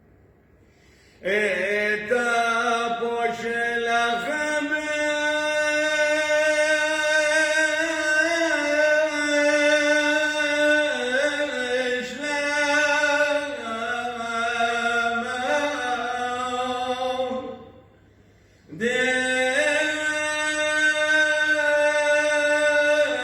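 A man's voice chanting a Syriac church hymn in long held notes with small melodic turns. The chant comes in about a second in and breaks for a short pause at about the 18-second mark before the next phrase.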